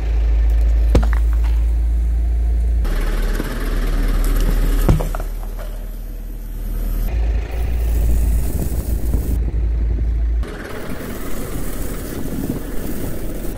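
A car's engine rumbling low as its tyre rolls slowly over asphalt and crushes a metal spray can, with a couple of sharp crunching snaps as the can gives way. Later the tyre presses over soft kinetic sand with the engine still running.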